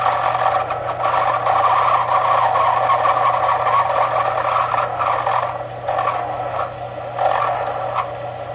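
Homemade mini wood lathe, driven by a salvaged water-purifier motor, running with a steady hum while a hand-held tool scrapes against the spinning workpiece. The scraping is continuous for about five seconds, then breaks into shorter bursts near the end.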